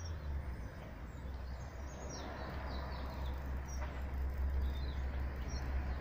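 Small birds chirping in short, high calls scattered through, over a steady low rumble.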